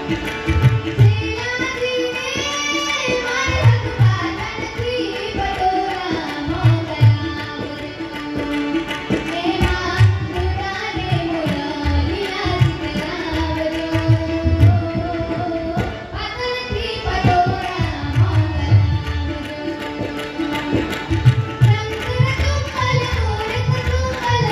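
A young woman singing a Gujarati folk song in an ornamented, gliding melody, accompanied by tabla played in a steady rhythm of low strokes.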